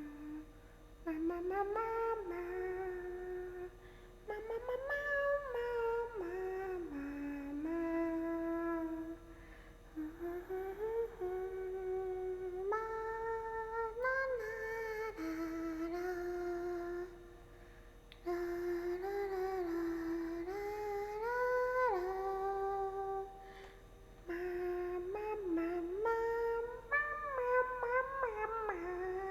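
A young woman's voice humming in short phrases of sliding, wavering notes, with brief pauses between them.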